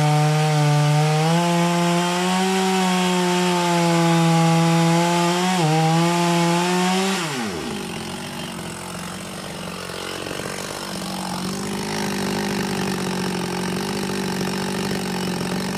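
Jonsered 630 two-stroke chainsaw running at full throttle through a birch log, its engine note steady under load. About seven and a half seconds in, the throttle is released and the pitch drops quickly, and the saw then idles with a rougher, quieter running sound.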